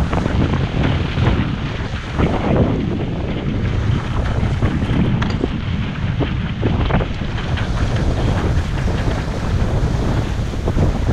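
Strong wind buffeting the microphone over the continuous rush of waves and water streaming along the hull of a sailboat under way in rough open sea.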